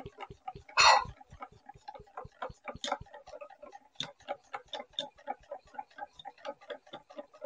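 Wire whisk beating thick gram-flour (besan) batter in a stainless steel bowl, mixing in food colour; the wires click against the bowl about five times a second with a light ring, and one louder clank comes about a second in.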